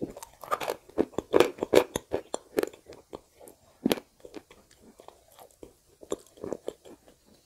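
Close-miked wet chewing and mouth clicks of a person eating clay paste. The clicks come thick in the first three seconds, with a sharper one about four seconds in and another short run of chewing near the end.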